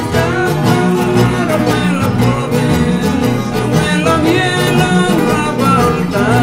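Background string band music: plucked guitars playing a lively, steady tune, with sliding notes.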